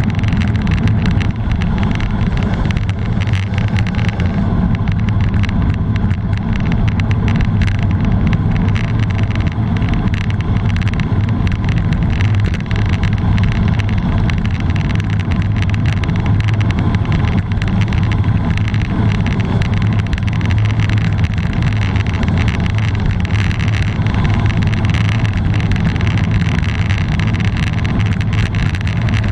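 Loud, steady wind rush buffeting the microphone, with tyre rumble on asphalt, from a road bike descending at about 60 to 70 km/h.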